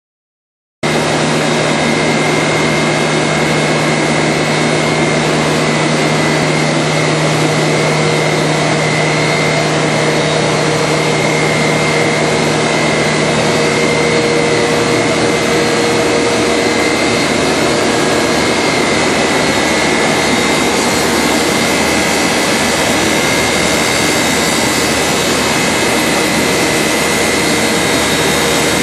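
Combination jointer-planer woodworking machine running with a loud, steady whirr and a constant high whine, starting abruptly just under a second in.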